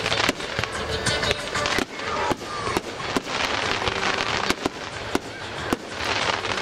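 Fireworks going off in quick succession: a dense crackle of many small bursts, with sharp bangs throughout.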